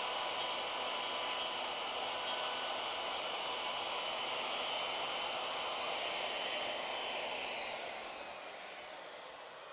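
Router on an ornamental mill running at speed with a steady high whine as it makes the last cut in a wooden moulding blank. About three-quarters of the way through it is switched off and winds down, fading away.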